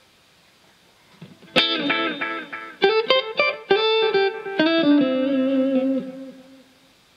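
Electric guitar played through a Caline Ghost Rain reverb/delay pedal. About a second and a half in, a quick run of plucked notes and chords starts, then the last notes ring on and fade out near the end.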